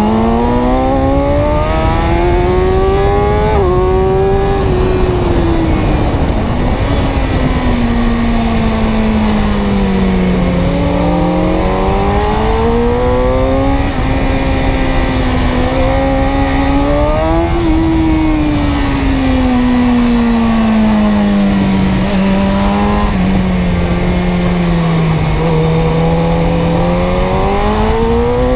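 An engine running and revving up and down in long, slow sweeps of pitch: it rises, falls back, climbs again and sinks, several times over.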